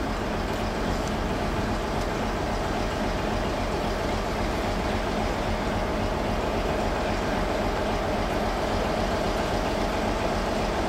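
Diesel locomotive engine running steadily as a propelled passenger train rolls slowly toward the listener, growing slightly louder.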